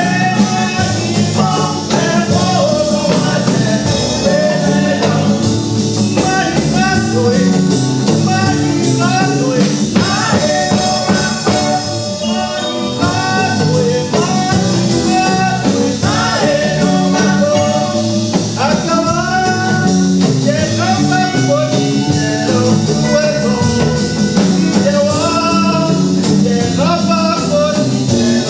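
Music with a singing voice over a full instrumental backing.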